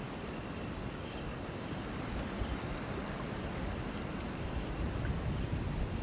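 Crickets chirping in a steady night-time chorus, a constant high shrill tone over a soft hiss.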